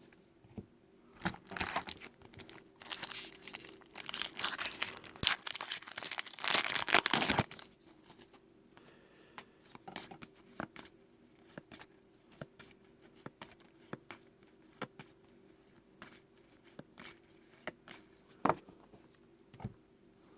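Plastic trading-card pack wrapper crinkling and being torn open for the first several seconds, then scattered light clicks and flicks as the cards are handled.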